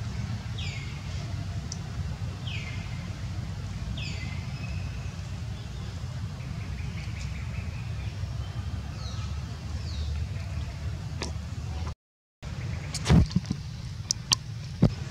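Birds calling with repeated short down-slurred whistles over a steady low rumble. After a brief break, a few sharp clicks and knocks follow near the end.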